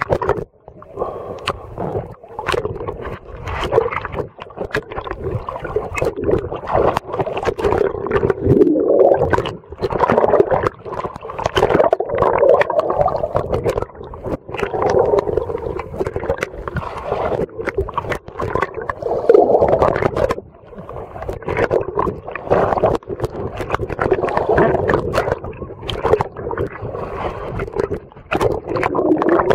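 Water sloshing and gurgling around a camera dipped in and out at the surface, muffled and bubbly, with frequent sharp clicks and knocks.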